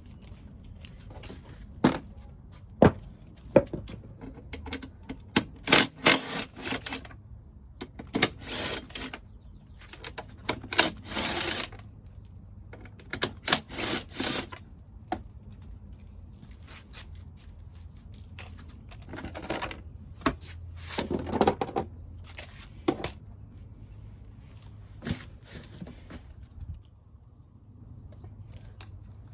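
Tools and metal parts being handled: irregular clicks, knocks, clinks and short scrapes in bursts, over a faint steady low hum.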